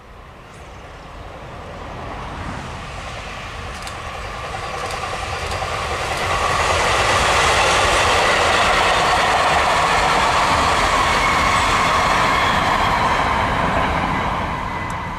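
Freight train of loaded hopper wagons hauled by an electric locomotive passing close by: the rumble and rattle of wheels on the rails grows as it approaches, stays loud while the wagons go past, and begins to fade near the end.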